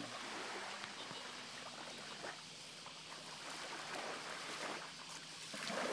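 Shallow seawater sloshing and splashing as a small dog dog-paddles through it, with a few louder splashes, one near the end.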